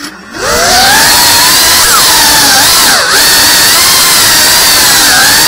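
FPV quadcopter's brushless motors and propellers spinning up from rest with a rising whine, then running loud and steady. Their pitch wavers and dips briefly twice as the throttle changes.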